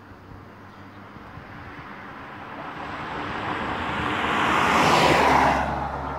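A vehicle passing close by: a rushing noise that swells over a few seconds, peaks about five seconds in, then falls away quickly.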